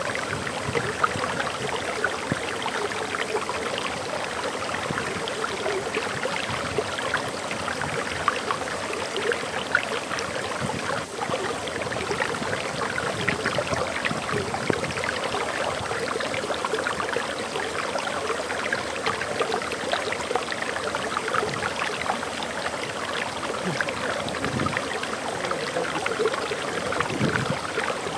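Water flowing and splashing over a waterfall: a steady rushing babble made of many small splashes, even in level throughout.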